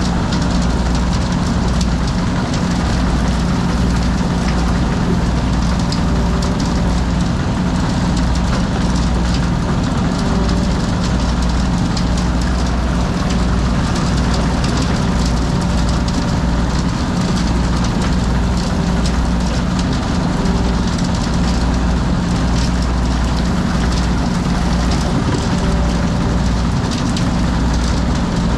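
Heavy drilling machinery running steadily at a constant load: a loud, even mechanical hum with a low pulsing throb beneath it.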